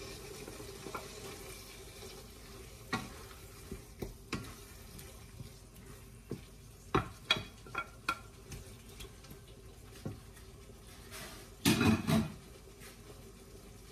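Wooden spatula scraping and knocking in a frying pan as chopped tomatoes and bell pepper are pushed off a plate into a meat sauce and stirred, under a faint sizzle from the pan. A louder bump about twelve seconds in.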